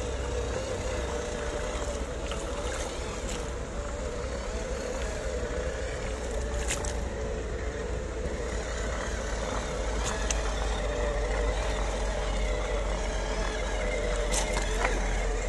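Electric motor and gearbox of a WPL C24 1/12-scale RC crawler whining steadily, the pitch wavering slightly with the throttle, as it wades through shallow muddy water. A few sharp clicks stand out, about a third of the way in, two-thirds in and near the end.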